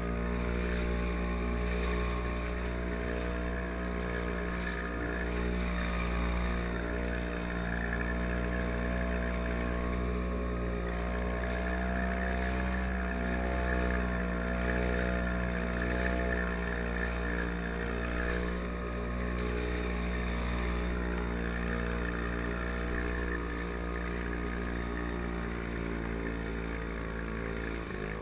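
The Pengor Penguin amphibious ATV's Villiers 9E single-cylinder two-stroke engine running steadily, its pitch wavering slightly as the vehicle motors through the water, with water splashing at the bow.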